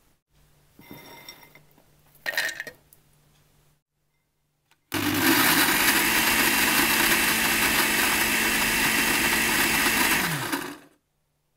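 Electric blender grinding roasted fox nuts (makhana) into powder: the motor starts abruptly about five seconds in, runs steadily for about six seconds, and winds down with falling pitch near the end. A brief clatter comes about two seconds in, before the motor starts.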